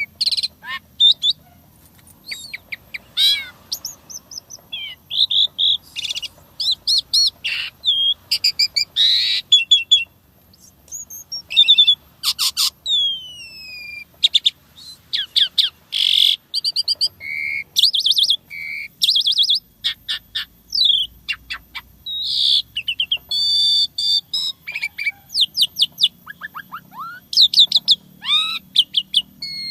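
Asian pied starling (jalak suren) singing a varied song: quick runs of whistled notes, long downward-sliding whistles and harsh chattering phrases follow one another with only brief gaps. The song is full of 'isian', phrases the bird has copied from other sounds.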